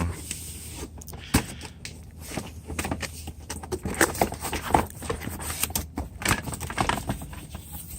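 A cardboard box being opened and the packaging inside handled: irregular rustling, scraping and knocks.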